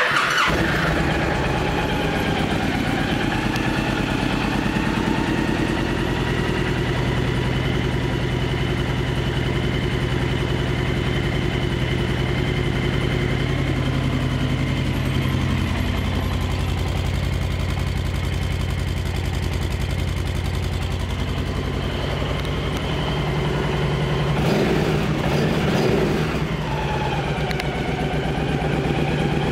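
2010 Honda Stateline 1300's liquid-cooled V-twin engine starting and then idling steadily, with a brief change in pitch near the end.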